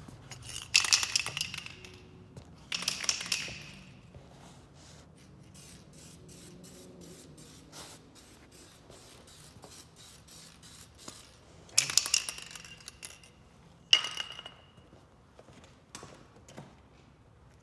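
Aerosol spray can hissing in four short bursts: two about a second long near the start, then two shorter ones later, each with a faint whistle. A run of light clicks comes between the bursts.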